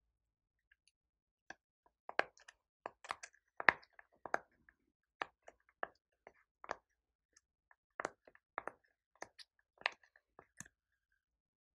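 Silicone rainbow pop-it fidget toy having its bubbles pressed in one by one with the fingers: a string of about twenty short pops at an uneven pace, starting a second or two in.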